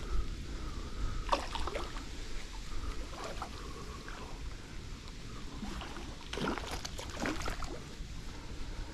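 A hooked carp thrashing and splashing at the surface of a shallow ditch while it is played on rod and line. Splashes come in irregular bursts: a few about a second in, more around three seconds, and the busiest flurry between about six and seven and a half seconds.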